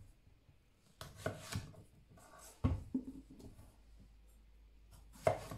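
Kitchen knife cutting the ends off a large courgette on a wooden chopping board: three sharp knocks of the blade meeting the board, about a second in, a little before three seconds, and near the end.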